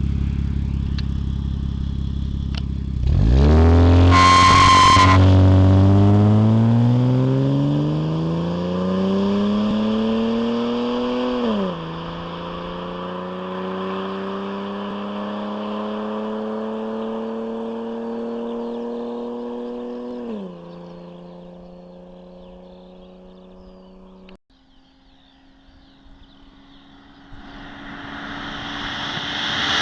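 Jaguar XJ40's straight-six running through a custom stainless-steel exhaust, pulling away under hard acceleration: the engine note rises steadily, drops at an upshift about 12 seconds in and again at about 20 seconds, and fades as the car draws away. After a sudden cut a steady engine note returns and grows louder near the end.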